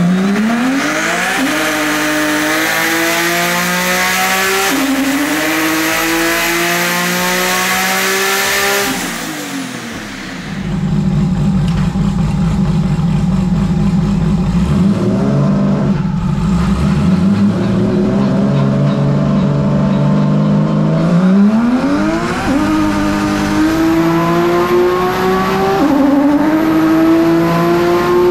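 Twin-turbo Toyota 2JZ inline-six in a land-speed streamliner on a hub dyno, pulling through the gears. The engine note climbs, drops at a shift about five seconds in and climbs again. Around ten seconds in it falls back to a steady lower speed, then a second pull starts about twenty-one seconds in, with another shift near twenty-six seconds.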